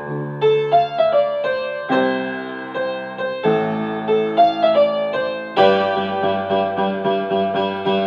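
Background music: an electric piano playing a simple melody over sustained chords, with the chords changing every second or two.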